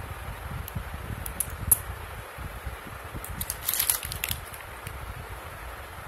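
Small black hematite magnets clicking together as they are handled: a few sharp clicks, then a quick clattering run of clicks about halfway through. A steady fan hum runs underneath.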